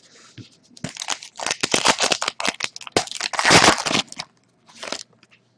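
A trading-card pack's wrapper being torn open and crinkled by hand: a dense run of crackling rustles lasting about three seconds, then one short rustle near the end.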